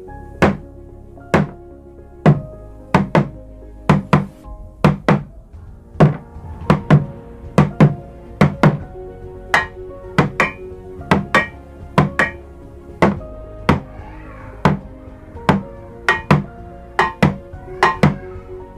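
Bamboo drumsticks beating a rhythmic pattern on an improvised drum, a plastic water container topped with a metal lid, giving deep thunks, often in quick pairs, about two to three strokes a second.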